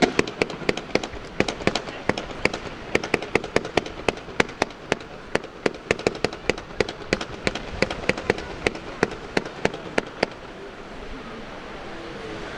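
Fireworks display: a barrage of sharp cracks and bangs, about five a second, from aerial shells and comets bursting. The barrage stops about ten seconds in, leaving a faint background.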